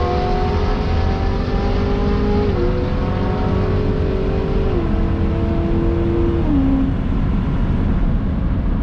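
2020 GMC Sierra's 2.7-litre turbocharged four-cylinder running at full throttle down the quarter mile. Its pitch rises slowly and drops sharply at each automatic upshift, three shifts about two seconds apart. Near the end the engine note fades into a steady rush of wind and tyre noise.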